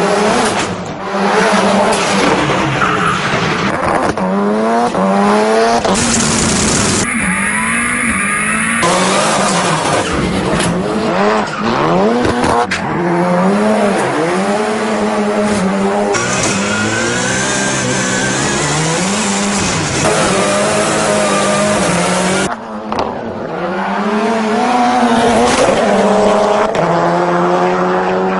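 Ford Fiesta rally car's engine revving hard, its pitch rising and falling again and again, with tyres squealing and skidding. Near the end the engine holds steadier and climbs through a gear change.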